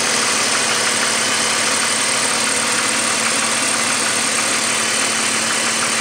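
BMW M54 straight-six engine idling steadily, with a fast, even knocking in the background: the engine knocking noise the owner is recording.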